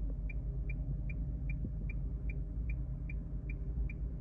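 Short, high electronic beeps repeating evenly, about two and a half a second, over a steady low rumble.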